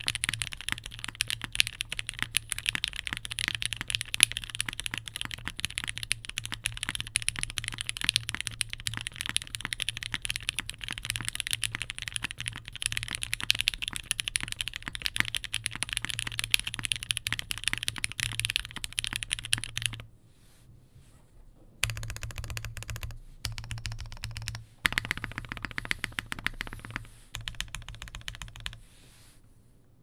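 Fast typing on a Monokei Kei mechanical keyboard with Gateron Ink switches, a half polycarbonate plate and GMK keycaps: a dense, rapid run of keystrokes that stops about two-thirds of the way through, picks up again in a few shorter bursts, and stops shortly before the end.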